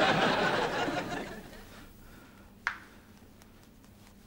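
Sitcom laugh track: a crowd laughing that dies away over the first second and a half, followed by a single short click.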